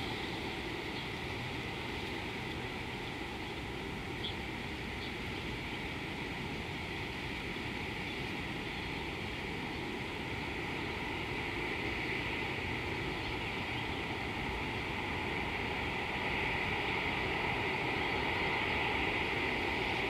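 Steady outdoor background noise: a low rumble under an even high hiss that swells slightly near the end, with a couple of faint short chirps about four and five seconds in.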